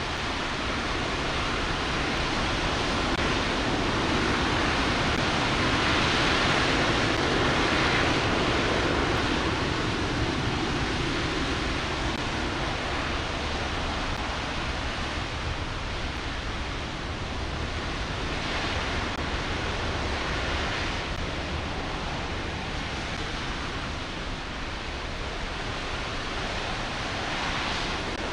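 RS-25 liquid-hydrogen/liquid-oxygen rocket engine firing continuously in a static test: a steady, dense rushing noise at an even level, swelling slightly about a quarter of the way in.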